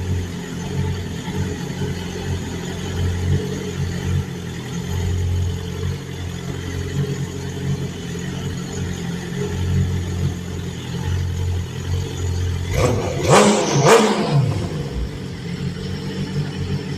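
BMW S1000RR's inline-four engine idling steadily, then revved once about thirteen seconds in, the pitch climbing sharply and falling back to idle within about two seconds.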